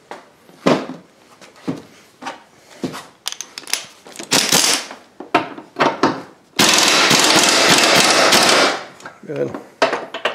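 Small air impact wrench hammering for about two seconds, about six and a half seconds in, snugging down the upper engine mount bolts to about 35 ft-lb, after a few short knocks and clinks as the socket is fitted onto the bolts.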